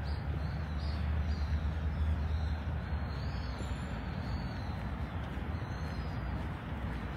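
Steady low rumble of city traffic, heaviest in the first few seconds, with a few faint high chirps over it.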